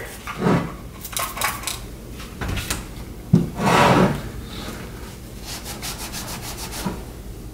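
A rag rubbing and scrubbing grime off the metal canister of a brake booster. There are a few quick hissing squirts of spray cleaner about a second in.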